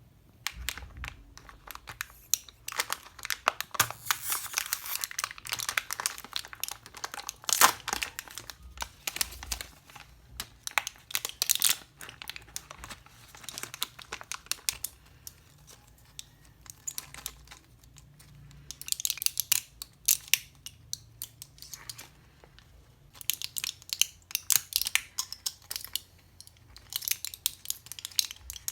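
Crinkling and rustling handled at close range, coming in bursts separated by short lulls and peppered with small sharp clicks.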